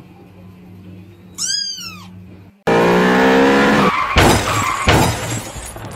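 A kitten meows once, a single call falling in pitch, about one and a half seconds in. A little under three seconds in, a sudden loud, noisy stretch begins, with falling tones at first and then several sharp thumps.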